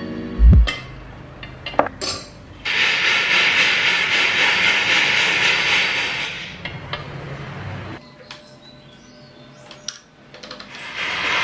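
A thump and a few metallic clicks of tools and silver wire on a soldering tile, then a jeweller's gas torch hissing steadily for about four seconds. It goes quieter with a few more clicks, and the torch hiss comes back near the end.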